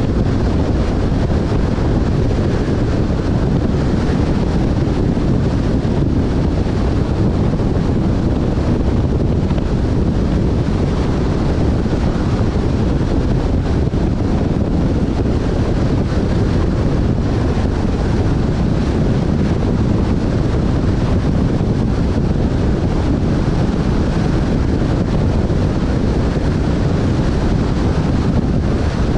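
Wind noise on the microphone: a steady, unbroken low rushing.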